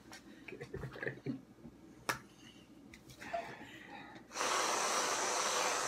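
Nearly empty can of aerosol whipped cream spraying, a loud steady hiss that starts suddenly about four seconds in. Before it, one sharp click.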